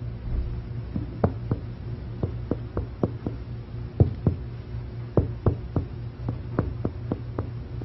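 Chest percussion: a finger tapping sharply on a finger laid against the patient's right front chest, in short runs of two to five taps with brief pauses between runs. The taps work downward from resonant lung toward the dullness over the liver to find the level of the right diaphragm.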